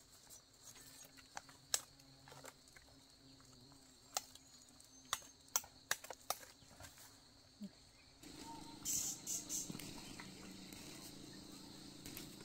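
Rural outdoor ambience: a steady high insect drone, typical of crickets, with scattered sharp snaps and clicks. About two-thirds of the way through, the background gets louder, with repeated short high hissing bursts.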